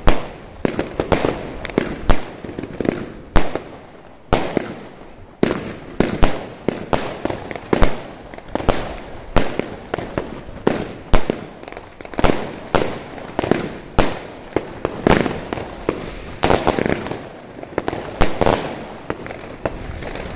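Zena Kracherblitz 130-shot, 25 mm compound firework cake firing, a rapid run of sharp launches and bursts at roughly two a second.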